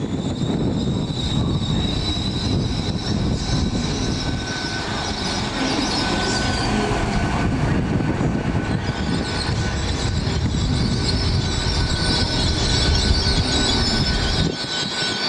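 Great Western Railway Class 800 train rolling along the platform: a steady rumble of wheels on the rails, with a high-pitched squeal from the wheels and a steady whine over it. The low rumble drops away suddenly near the end.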